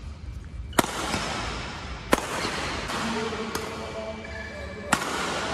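Shuttlecock struck hard by a Yonex Astrox 100ZZ badminton racquet: three loud, crisp cracks roughly every second and a half, with a fainter hit between the second and third, over background music.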